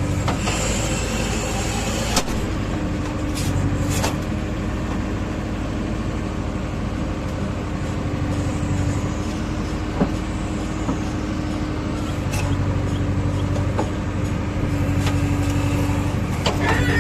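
JCB 3DX backhoe loader's diesel engine running steadily at working revs, the rumble swelling slightly at times, with a few short knocks from the machine.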